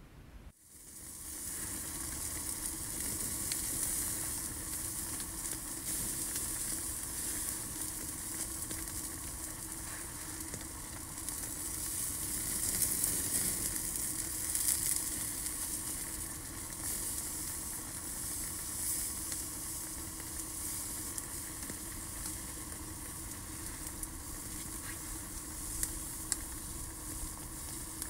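Food cooking in a steaming pot over a small camp stove with a stick fire, a steady sizzling hiss that starts suddenly about half a second in.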